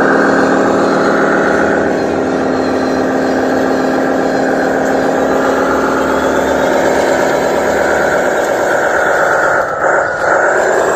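A radio-controlled model dump truck running with a steady engine-like drone whose pitch drifts slowly up and down. There is a brief break near the end.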